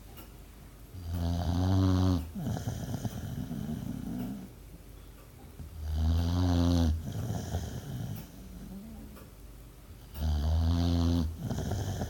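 A sleeping dog snoring: three loud, low, rumbling snores about four to five seconds apart, each followed by a softer breath.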